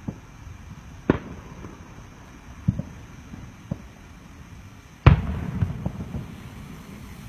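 Aerial fireworks shells bursting: sharp bangs about a second apart, the loudest about five seconds in, followed by a rumbling tail and a few smaller pops.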